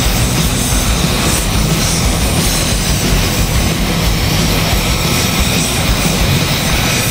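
Jet engine of an F-35 fighter running on the taxiway, a loud, steady rushing noise with a faint high whine.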